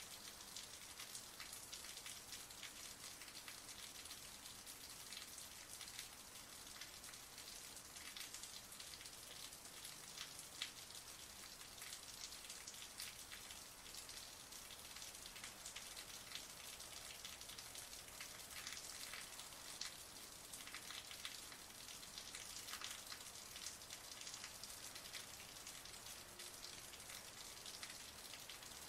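Heavy rain falling: a steady, dense patter of countless drops, mostly high-pitched, with one sharper drop standing out about ten seconds in.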